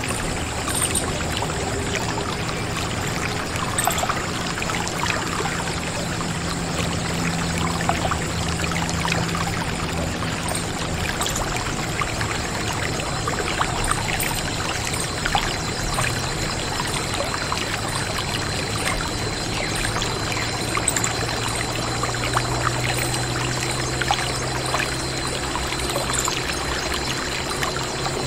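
Water pouring in a steady stream from a miniature electric pump's outlet onto wet sand, splashing into a small puddle.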